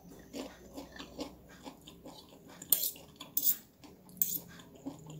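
Someone chewing a mouthful of fried noodles in soft, rapid bites. Partway through, a metal fork and spoon scrape and clink against a ceramic plate three times.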